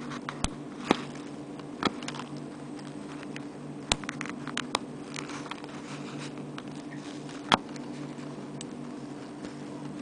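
Small sharp metal clicks from a silver padlock clasp on a bracelet being worked open and shut between the fingers, about seven clicks at uneven intervals over a steady low hum.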